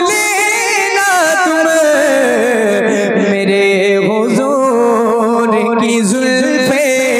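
A man singing a naat into a microphone in long, drawn-out melismatic phrases. The melody slides down about a second in, then holds long, ornamented notes.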